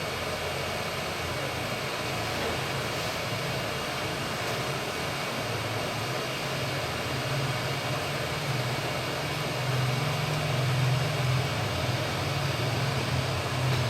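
Swirl-airflow hot air rework station blowing a steady hiss, with a low hum under it that gets somewhat louder about halfway through.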